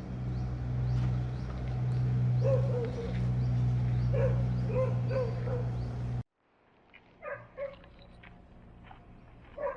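Short, wavering animal calls over a steady low hum. The hum cuts off abruptly about six seconds in, leaving a much quieter stretch with a few faint calls.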